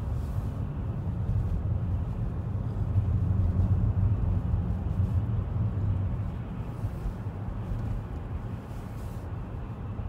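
Steady low engine and tyre noise of a car driving on a snow-covered road, heard from inside the cabin, easing off slightly near the end.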